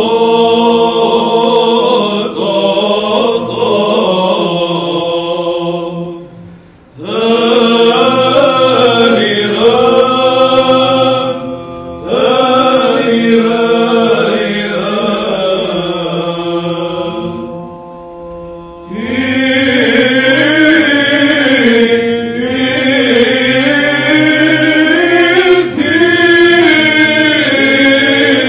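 Men's choir singing Byzantine chant: a melody sung over a low held note. The phrases break for short pauses about six and a half seconds and eighteen seconds in.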